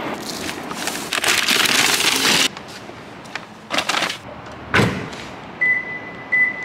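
Shopping bags rustling as they are handled and loaded into a car trunk, stopping abruptly, followed by a few knocks and one heavy thump. Two short high beeps sound near the end.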